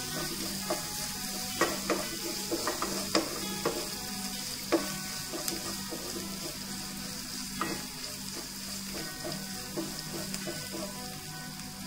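Sliced onions with chilli and ginger-garlic paste sizzling steadily in oil in a non-stick wok, stirred with a wooden spatula that scrapes and knocks against the pan about a dozen times at uneven intervals.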